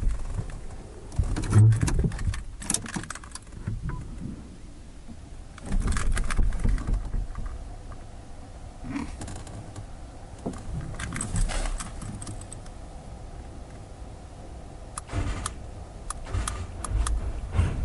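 Clicks, rattles and knocks of things being handled inside a stopped car's cabin, with a low thump or two. They come in four short clusters a few seconds apart.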